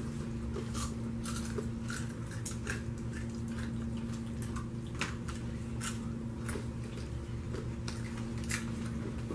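Caramel-coated popcorn being chewed, irregular crisp crunches and clicks from several mouths, over a steady low hum.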